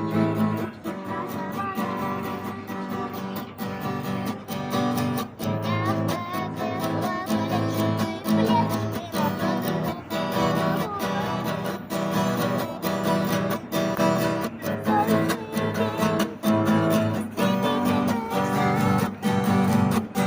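Acoustic guitar strummed in a steady, even rhythm, playing a song.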